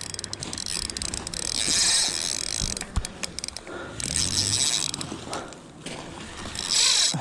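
Penn spinning reel being cranked in three short bursts, each about a second long, its gears whirring, with scattered clicks in between.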